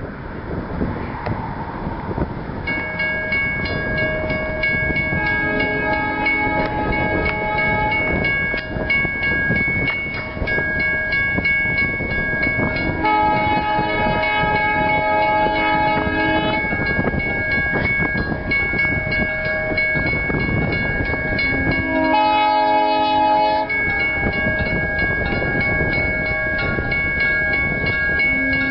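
Diesel locomotive's air horn sounding the grade-crossing signal for an approaching train: two long blasts, a short one, then a long one beginning near the end. Under the horn, a level-crossing warning bell rings steadily and rapidly, starting a few seconds in.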